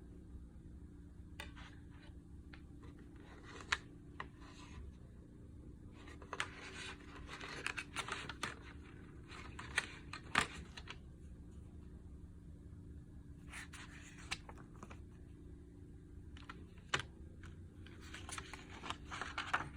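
A CD case being handled and opened: scattered sharp clicks and taps with short scratchy rustles of plastic, over a faint steady hum.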